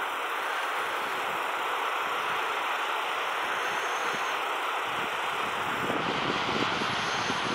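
Steady rushing outdoor hiss, with low gusts of wind buffeting the microphone from about five seconds in.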